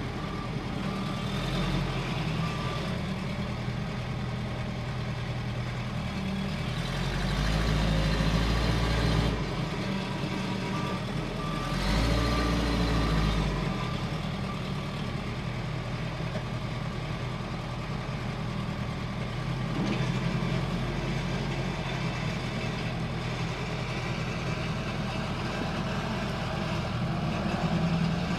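Case 580L backhoe's diesel engine running steadily, coming up in revs twice for a couple of seconds each, with a reversing alarm beeping at times.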